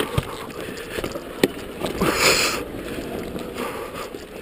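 Dirt bike rolling down a rocky dirt track: a rough low rumble with knocks and rattles from the bike over stones, and a short burst of hiss about two seconds in.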